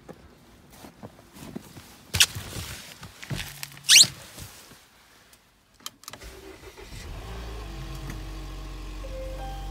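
Two loud scrapes a couple of seconds in, then about six seconds in the 2019 Volvo XC60 T5's turbocharged 2.0-litre four-cylinder engine starts from cold and settles into a steady low idle.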